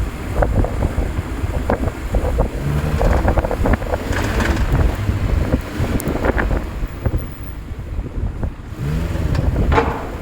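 Eighth-generation Honda Civic on the move, low road and engine rumble with irregular knocks and clicks coming through at uneven intervals: the fault noise the owner is recording.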